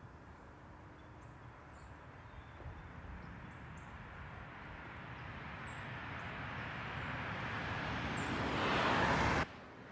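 A vehicle approaching along the road, its tyre and engine noise growing steadily louder over several seconds, then cutting off suddenly near the end.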